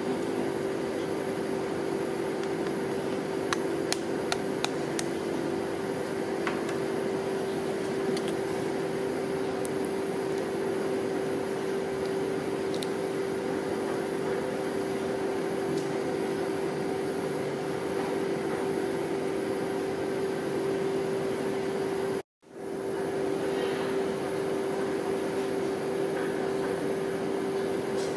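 Steady hum of a rolled-ice-cream cold-plate machine's refrigeration unit running, with a steady mid-pitched tone. A few sharp taps about four seconds in, a knife cracking an eggshell, and the sound drops out for a moment a little before the end.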